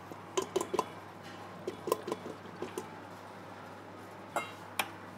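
Spatula scraping and tapping against a stainless-steel stand-mixer bowl while the sides are scraped down: short clinks and knocks in small clusters over a faint steady hum.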